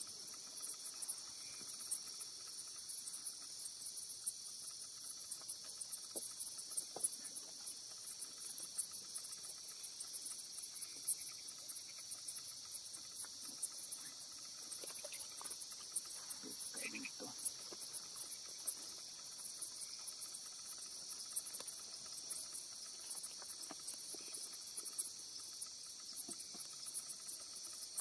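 Night insect chorus of the rainforest: a steady, dense, high-pitched trilling in two layers, one higher than the other, unbroken throughout. Now and then faint splashes and knocks come from a gillnet being hauled into a wooden canoe.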